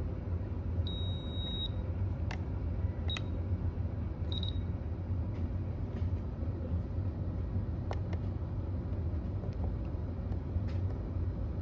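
Fire alarm control panel beeping: one high-pitched beep of nearly a second, then two short beeps about a second apart, over a steady low hum with a few faint clicks.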